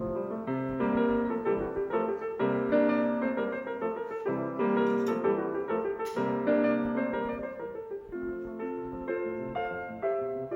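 Background piano music, a melody of sustained notes, with one brief click about six seconds in.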